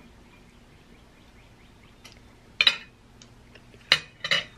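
Metal spoon and fork clinking against a glass bowl and plate while picking at fish: three sharp clinks in the second half, the first about two and a half seconds in.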